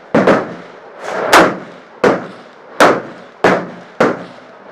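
Rifle gunfire: about six loud shots, unevenly spaced half a second to a second apart, each a sharp crack that dies away quickly.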